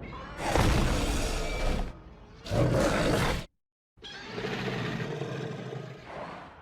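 Giant-monster roar sound effects of the Godzilla and dinosaur kind, one after another. A long roar, then a shorter one, a brief dead silence, then a quieter, longer growling roar.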